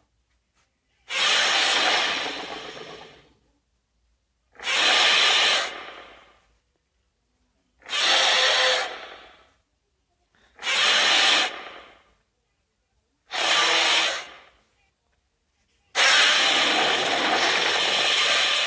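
Godzilla (2014) monster sound effects: six harsh, rasping bursts of about two seconds each. Each starts suddenly and fades out, with silent gaps between them, and the last one comes near the end and carries on.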